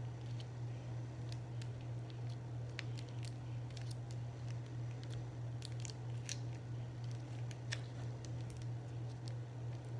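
Small crinkles and clicks from a plastic sauce packet being squeezed and handled over parchment paper, scattered irregularly, over a steady low hum.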